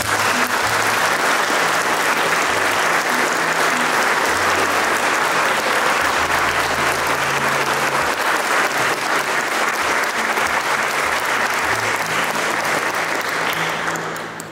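Church congregation applauding at length, a dense, steady round of clapping that dies away near the end.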